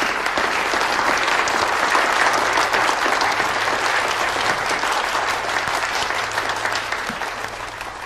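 A seated audience applauding, a dense sustained round of clapping that fades away near the end.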